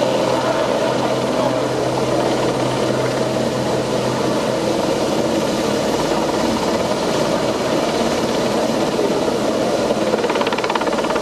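Royal Navy Westland Sea King helicopter hovering close by, its rotors and twin turboshaft engines running steadily: a loud, even noise with a constant low hum underneath.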